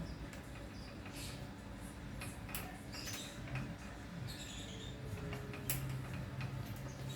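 Irregular small clicks, ticks and squeaks of tools and bicycle parts being handled during an overhaul, over a low steady hum.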